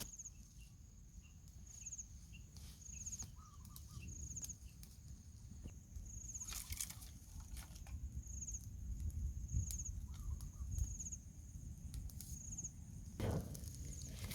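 Short, high chirps repeating about once a second over a steady low rumble, with a few scattered clicks and knocks.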